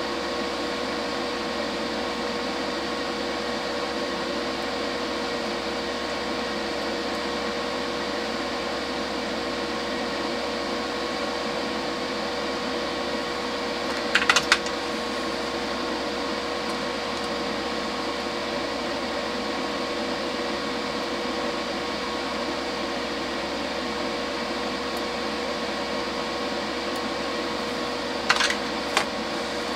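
Steady whirring hum of a small electric fan, with a constant pitched tone running through it. A few sharp clicks come about halfway through and again near the end.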